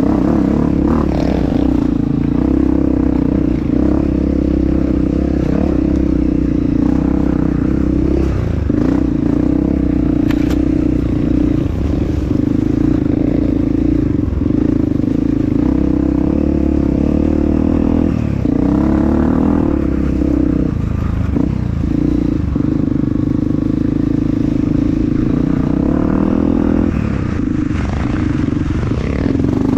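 Honda CRF250F's single-cylinder four-stroke engine running under throttle, its pitch holding steady with brief dips and pick-ups every few seconds as the throttle is rolled off and back on, with some clatter from the bike over rough ground.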